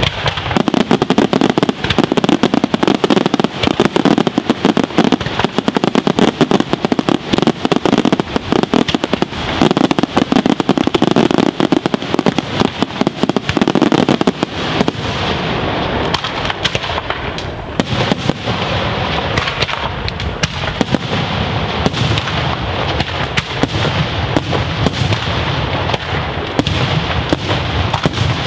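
Daytime aerial fireworks: a dense, continuous barrage of shell bursts and rapid bangs, thickest in the first half and thinning a little after about halfway.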